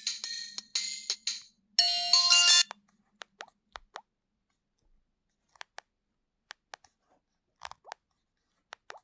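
Alcatel OT-1066G phone's speaker playing a ringtone, a quick electronic tune of short high notes, which cuts off about a second and a half in; a brief snippet of another tone follows about two seconds in. The rest is scattered faint clicks.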